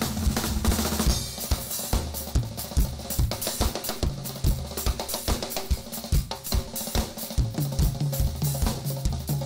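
Drum kit playing a steady groove, with kick drum, snare, hi-hat and cymbals, over a bass line of held low notes that change pitch.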